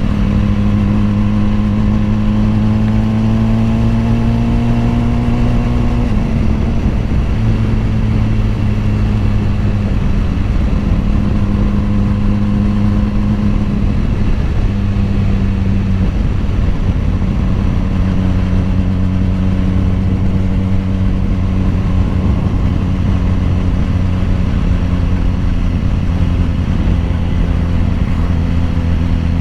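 BMW S1000RR's inline-four engine running under way: the revs climb slowly for a few seconds, drop with a gear change about six seconds in, then hold fairly steady with a few small shifts in pitch.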